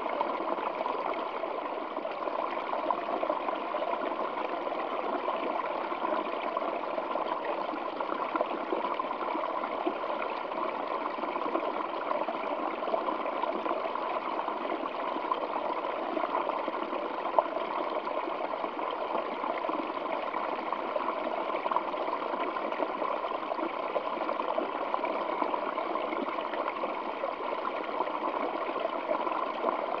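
Small stream of water trickling and splashing over rocks, a steady, unbroken rush.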